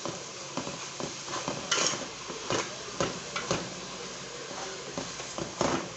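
A utensil knocking and scraping irregularly against a thin pan as sugar and sliced onion are stirred over a high flame toward caramel, over a steady faint hiss.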